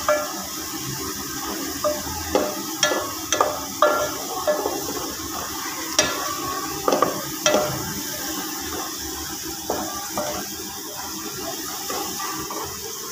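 Sliced onions frying in oil in an aluminium pot, stirred with a wooden spoon: a steady sizzle with irregular scrapes and knocks of the spoon against the pot. The onions are browning.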